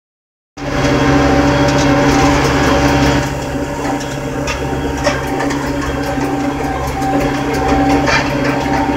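Tümosan tractor's diesel engine running steadily under load, heard from inside the cab, with a light, fast mechanical clatter from the Karataş square baler it is pulling.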